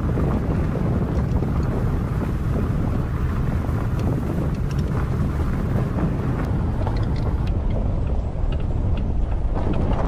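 SsangYong Rexton SUV driving slowly on a gravel forest track, heard from a camera mounted outside the vehicle. A steady low rumble of wind buffeting the microphone lies over the tyres on gravel, with a few small ticks of stones.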